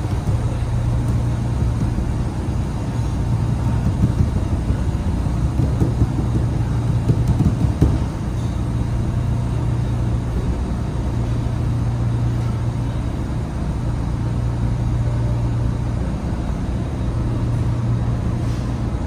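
Steady low machinery hum with a constant deep drone. A few louder, irregular rustling sounds come between about four and eight seconds in.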